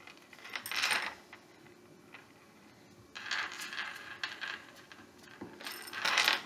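A paintbrush scrubbing back and forth on a paper plate, spreading glue, in three scratchy spells: about a second in, from about three seconds in, and the loudest near the end.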